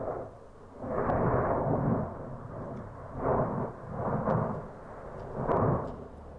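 Volcanic eruption blasts: a series of four or five deep, rumbling booms, each lasting about a second and coming a second or two apart.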